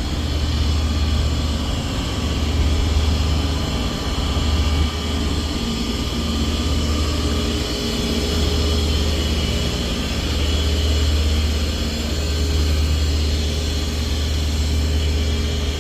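Heavy machinery running steadily: a low drone with a faint high whine over it, swelling and easing a little every few seconds.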